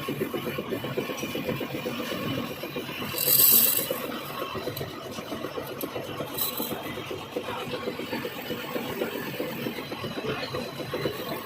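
Metal lathe running as a cutting tool scrapes along a steel shaft being turned, with a brief loud hiss about three seconds in.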